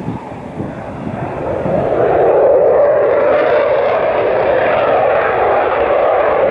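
BAE Hawk T2 jet trainer's Rolls-Royce Adour turbofan at high power as the jet lifts off the runway and climbs away. It is a rushing jet engine noise that swells about two seconds in and then holds steady.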